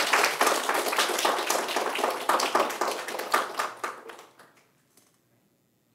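Audience applauding, the clapping tapering off and dying away about four to five seconds in.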